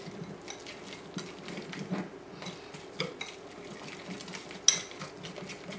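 A wire whisk beats a thick flour-and-water batter in a glass bowl. The wires scrape and tick against the glass in a quick, uneven run, with one louder clink about three-quarters of the way through.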